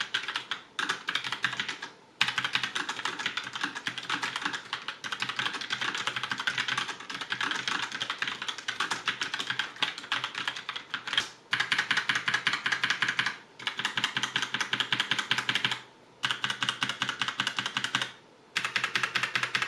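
Fast typing on a Genesis Thor 401 mechanical keyboard with Kailh Brown switches: a rapid clatter of keystrokes in long runs broken by several short pauses. It is a test of how loud the switches are.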